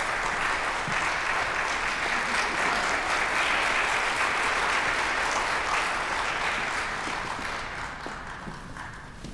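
Audience applause, steady for several seconds and then dying away near the end.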